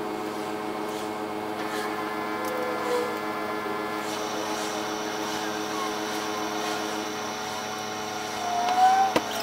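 A steady machine drone, a motor hum holding many fixed pitches. Near the end it swells louder and there is one sharp click.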